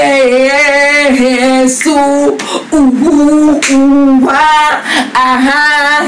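A woman singing loudly without accompaniment, holding long notes with a wavering vibrato across several phrases, with short breaths between them.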